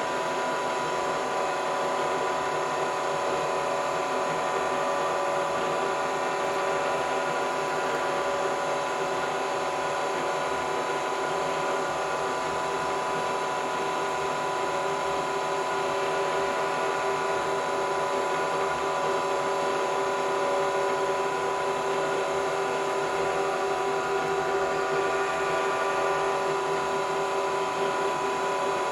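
Vertical milling machine's spindle head running at a steady speed: an even mechanical whine made up of several steady tones.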